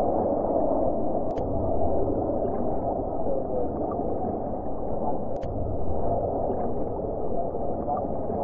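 Distant jet engines of a formation of aerobatic jets, a steady rushing drone, with two brief clicks.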